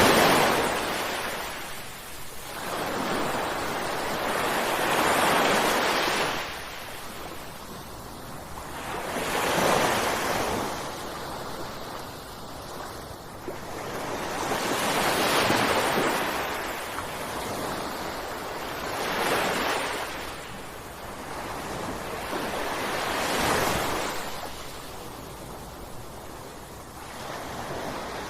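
Ocean waves breaking on the shore one after another, a rushing surge that swells and falls back about every four to five seconds.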